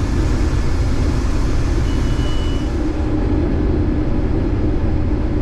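Steady low drone of a running vehicle engine, unchanging throughout.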